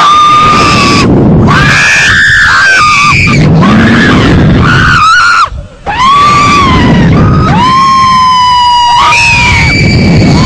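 Women screaming on a slingshot ride: loud, long, held screams that break off briefly about halfway through, then start again.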